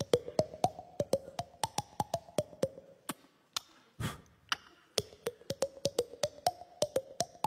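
Vocal percussion: a beatboxer's mouth clicks and pops into a handheld microphone, a rapid rhythm of about four pitched clicks a second. There is a short break near the middle and a low thump about four seconds in.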